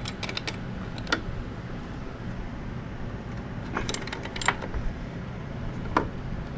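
Sharp metallic clicks and clinks of hand tools and a crowbar on metal while the ATV's primary clutch bolt is torqued down. There is a quick cluster at the start, a single click about a second in, two around four seconds, and one ringing clink near the end.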